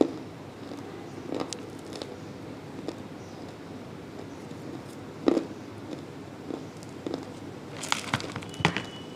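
Dry multani mitti (fuller's earth clay) being bitten and chewed: scattered crisp crunches a second or more apart, with a quick cluster of sharper cracks near the end.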